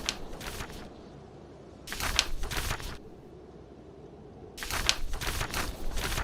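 Book pages being turned: three rustling paper sounds, each about a second long, over a steady low background of snowstorm wind.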